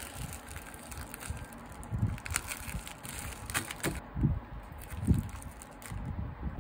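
Thin plastic triangle-kimbap wrapper crinkling and rustling in irregular bursts as hands fold it around the rice, with a few soft low thumps.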